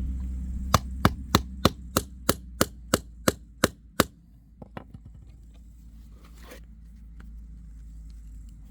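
About a dozen sharp hammer blows, roughly three a second, on a screwdriver's plastic handle, stopping about four seconds in. A steady low rumble runs underneath.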